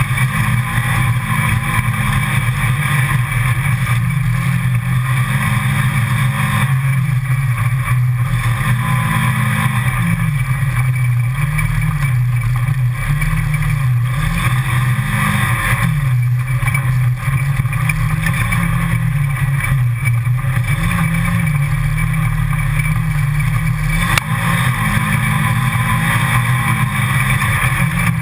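Engine of a side-by-side utility vehicle driven along a rough forest dirt trail, its note rising and falling every few seconds as the throttle comes on and off. There is a single sharp knock near the end.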